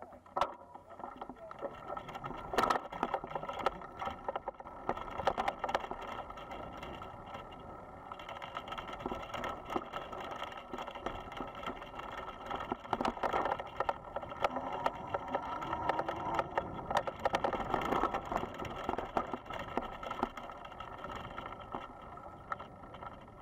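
Electric bicycle riding over a bumpy dirt track: a steady muffled rumble of wind and tyres with frequent knocks and rattles from the bike.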